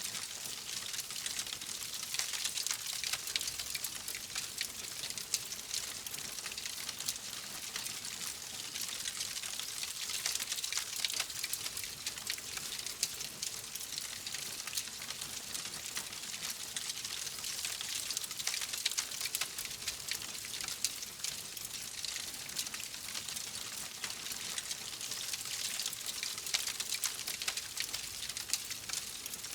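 Wood fire burning in a fireplace: a steady hiss full of dense small crackles and pops.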